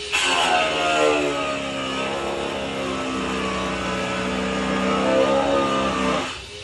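Frightened cat's long, low yowl lasting about six seconds. It starts suddenly, dips in pitch over the first second, then holds with a slight waver before fading out.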